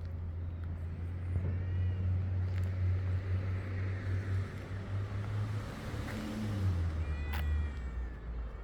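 Steady low engine hum of a vehicle, dipping in pitch about seven seconds in, with a calico cat giving two short faint calls over it, one about a second and a half in and a sharper one near the end.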